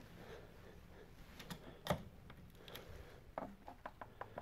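Faint, irregular plastic clicks of buttons being pressed on a handheld fuel injector pulse tester, a few at first and a quicker cluster near the end.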